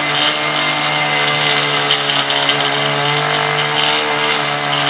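A motor running steadily, a constant low hum with an even pitch and a hiss over it.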